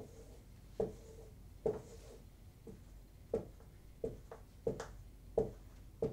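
Dry-erase marker tapping and stroking on a whiteboard as dots and circles are drawn, a series of short, sharp taps roughly one or two a second.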